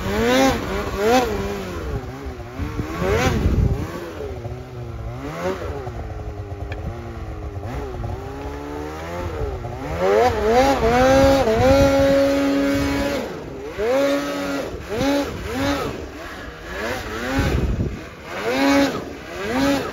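Snowmobile engine revving up and down as the throttle is worked. Its pitch is held high for a couple of seconds around the middle, then comes a run of short revs about once a second near the end.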